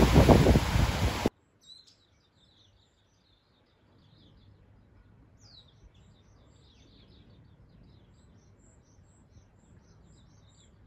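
Sea waves surging and breaking over shoreline rocks, with wind on the microphone, cut off abruptly about a second in. Then faint birds chirping, with many short high calls.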